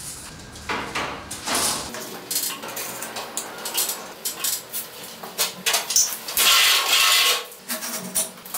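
A hand tool scratching and scraping lines into a plastered wall in short strokes, with one longer scrape about six and a half seconds in and a few scattered knocks.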